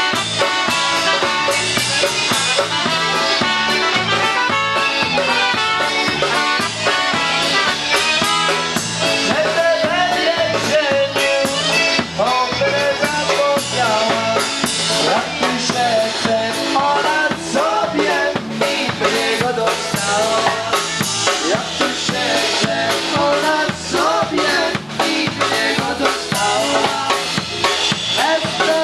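Polka band playing live: a drum kit keeps a steady beat with snare and rimshot hits under keyboard and accordion.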